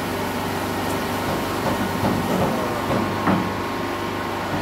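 A steady low mechanical hum of a running motor, even throughout.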